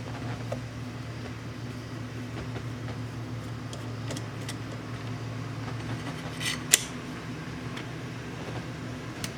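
Small metallic clicks of a screwdriver working the turn signal switch screws out of a steering column, with one sharp, louder clink about two-thirds of the way through, over a steady low hum.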